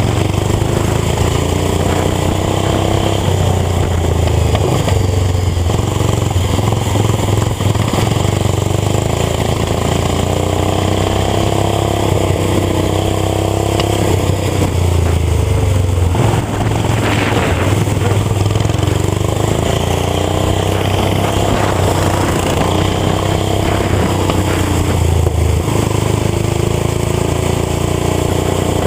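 Small lawn-tractor engine running hard around a track, its pitch rising and falling repeatedly as it speeds up on the straights and slows for the corners.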